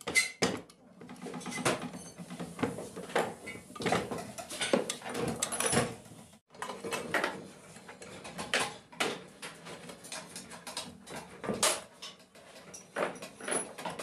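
Irregular metal clinks, knocks and scrapes as shafts and fittings are worked by hand into a sewing machine head.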